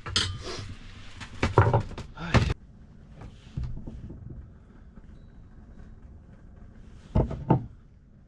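A series of knocks and thuds from hard objects being handled and set down, several in the first two and a half seconds and two more close together near the end.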